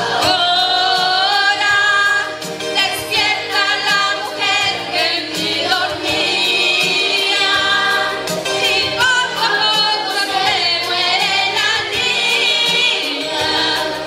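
A woman singing a song with instrumental backing, her voice moving through long, wavering notes.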